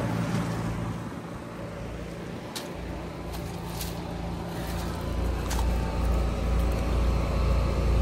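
2022 Trane XR14 3.5-ton heat pump outdoor unit running, its condenser fan and scroll compressor humming steadily, with a few light clicks. The hum grows louder and deeper about five seconds in.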